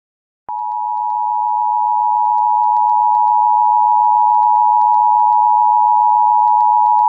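NOAA Weather Radio warning alarm tone: one steady, loud 1050 Hz beep that comes on about half a second in and holds. It is the signal that an urgent warning, here a tornado warning, is about to be read.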